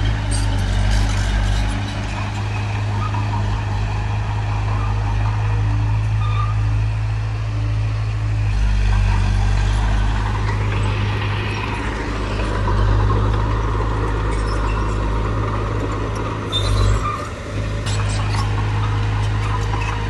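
Heavy diesel engine of earthmoving machinery running steadily with a low drone, with a few short knocks and a brief dip in level near the end.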